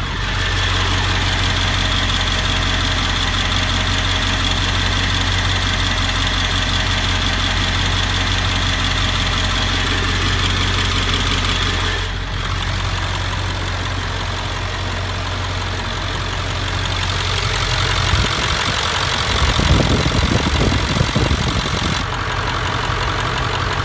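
7.3-litre V8 diesel engine idling steadily, with a slight tick that has appeared since a new injector was fitted. About three-quarters of the way through there is a few seconds of irregular low rumbling.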